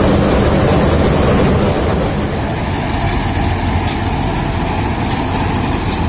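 John Deere 5310 tractor-mounted combine harvester running steadily while harvesting corn: the tractor's diesel engine working under load with the harvester's threshing mechanism turning.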